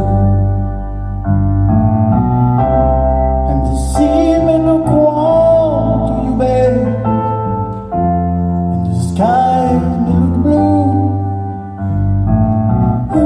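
Live band playing a slow ballad: piano or keyboard chords over a sustained deep bass, with a sung melody coming in twice.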